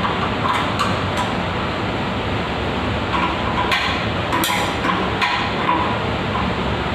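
Irregular sharp taps and clinks of metal tools and plumbing fittings being handled and knocked while a toilet's supply line is dismantled, over a steady background hiss.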